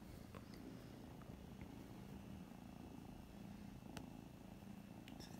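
Kitten purring faintly and steadily, with a few small clicks of its teeth on a plastic ballpoint pen, the sharpest about four seconds in.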